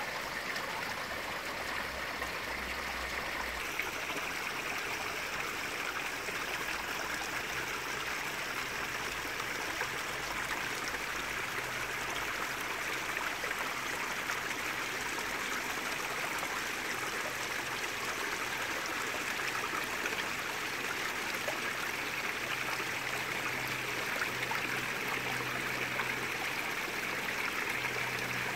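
Steady trickle and splash of water running in a garden pond's water feature, the flow falling into the pond.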